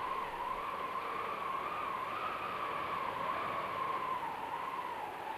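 Steady hiss of flowing stream water as background ambience, under a faint held tone that slowly wavers up and down in pitch.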